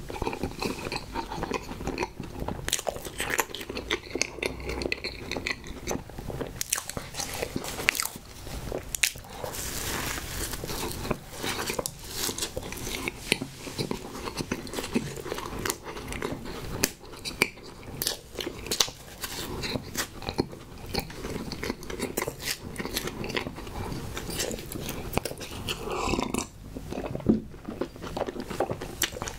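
Close-miked biting and chewing of strawberry Twinkie Snowball cakes (pink coconut-coated marshmallow over chocolate cake): soft, wet chewing with many small clicks and crunches.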